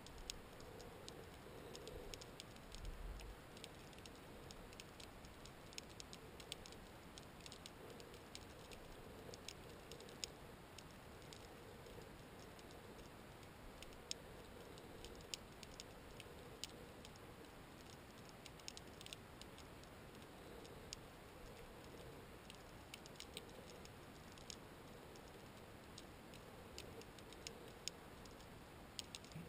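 Faint underwater ambience at a shipwreck: a soft hiss with scattered sharp clicks and crackles at irregular intervals, a few a second, and a faint hum that comes and goes.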